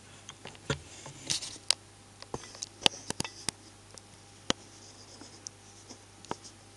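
Scattered light clicks and taps of steel parts being handled and shifted on the fly press bed, a dozen or so irregular small knocks, over a faint steady low hum.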